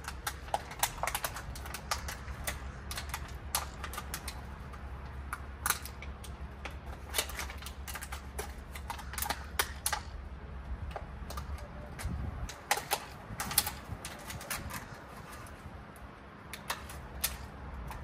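Irregular sharp clicks and snaps of hands working a jackfruit branch to prepare it for air-layering, coming in quick clusters with short pauses between.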